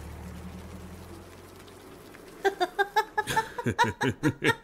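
A low engine rumble fades away early on. About two and a half seconds in, a voice breaks into coughing, in quick repeated bursts of about four a second.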